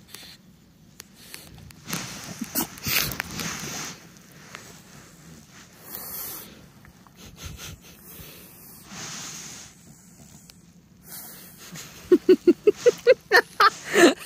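French bulldog snorting and wheezing in separate breathy bouts as it is petted on a fuzzy blanket. Near the end comes a fast run of short, loud pitched sounds, several a second.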